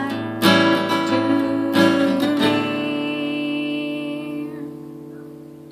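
Acoustic guitar strumming the song's closing chords, a few strums and then a final chord left ringing, fading away over about three seconds.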